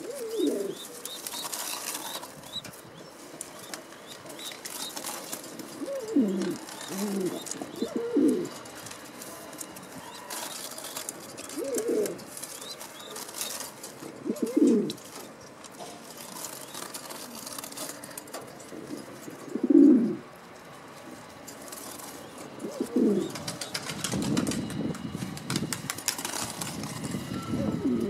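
Gorguero pouter pigeons cooing: low, rolling coos repeated every few seconds, the loudest about two-thirds of the way through. Wing flapping and scuffling come in places, mostly near the end.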